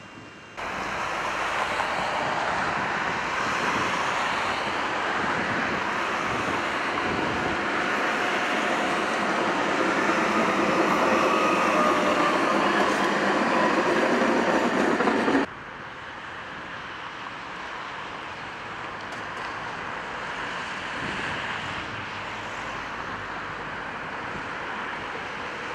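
A CKD Tatra T4D-C tram coupled with a trailer car rolls past close by: steady steel-wheel-on-rail running noise with a faint whine that slides in pitch. About fifteen seconds in, the sound cuts abruptly to a quieter, steady running noise as a tram passes farther away.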